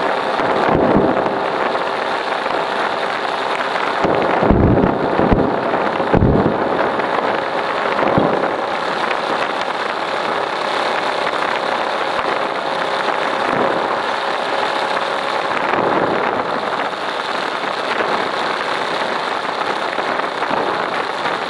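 Kawasaki Ninja 150RR's two-stroke single-cylinder engine running steadily while riding, with several short low rumbles of wind buffeting the microphone, most of them around four to six seconds in.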